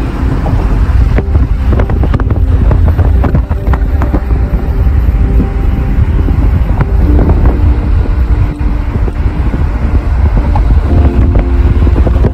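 Car driving at speed, a steady low road rumble with heavy wind buffeting on the phone's microphone.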